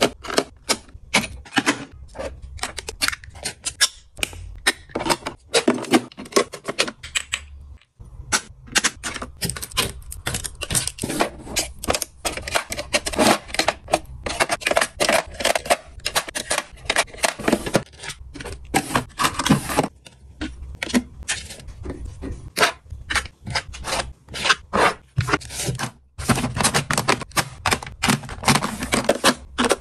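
Makeup bottles, brushes and compacts being picked up and set down in clear acrylic organizers: a rapid, irregular run of clicks and taps of plastic and glass, with rubbing and scraping.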